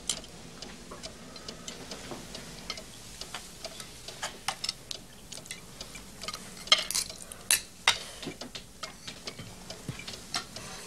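Cutlery and serving spoons clinking against china plates and dishes during a meal: a run of small, irregular clinks, with a few sharper ones a little past the middle.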